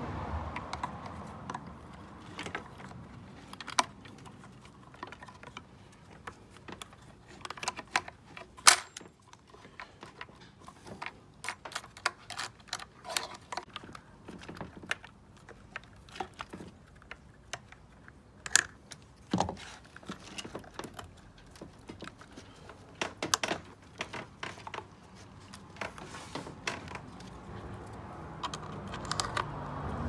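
Irregular small clicks, taps and rattles of plastic dishwasher pump parts, a rubber hose and a metal hose clip being handled and fitted with pliers. A few knocks are louder.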